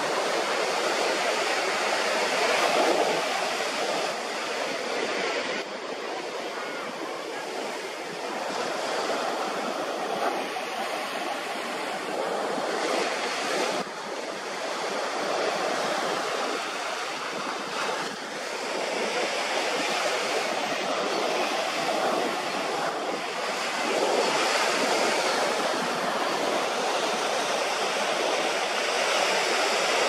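Ocean surf washing on a beach: a steady rushing that slowly swells and eases.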